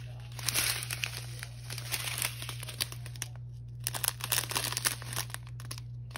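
A strip of clear plastic diamond-painting drill bags crinkling as it is handled and turned in the hands, a crackly rustle with a couple of short pauses.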